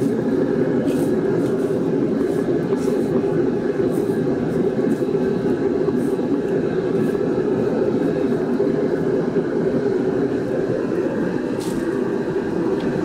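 Steady roar of a large pot of water at a rolling boil, with splashing and a few light clinks as a steel ladle pours the boiling water over a whole duck to scald its skin.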